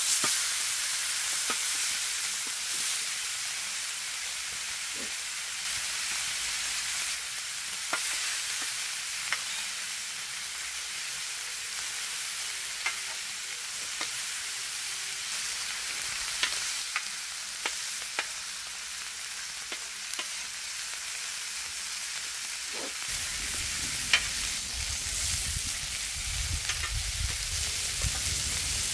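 Beef short ribs sizzling on a hot iron griddle: a steady high hiss with scattered sharp clicks and pops. A low rumble joins near the end.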